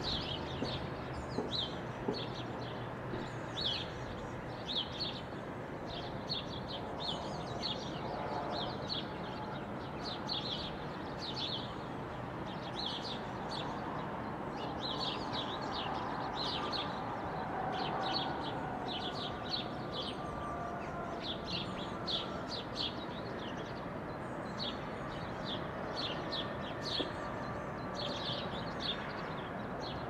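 Small birds chirping over and over in short, sharp notes, a few at a time in quick runs, over a steady rush of background noise.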